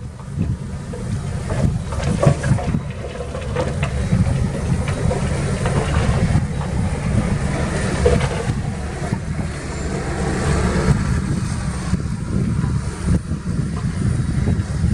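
Heavy diesel earth-moving machinery running under load, a steady low rumble with scattered clanks and rattles.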